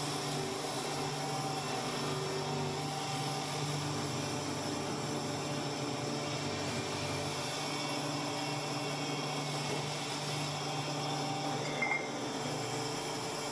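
Belt-driven buffing wheel running steadily while a motorcycle wheel hub is held against it for polishing: a constant hum with an even hiss. A brief high blip sounds near the end.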